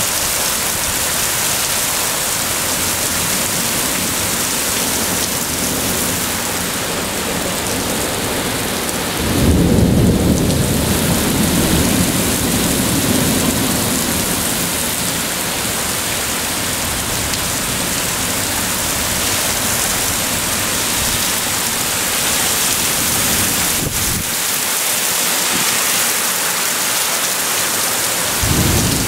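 Heavy thunderstorm rain pouring steadily. A low rumble of thunder rises about a third of the way in and fades over several seconds, and another rumble begins near the end.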